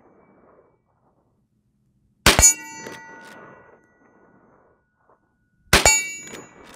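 Two shots from a Rossi R92 lever-action rifle in .357 Magnum, about three and a half seconds apart, each with a metallic clang that rings on for a moment. A softer mechanical clatter follows each shot as the lever is worked.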